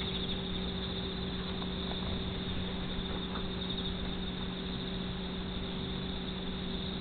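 A steady low hum with an even hiss and a faint, high, pulsing chirr over it. Nothing starts or stops.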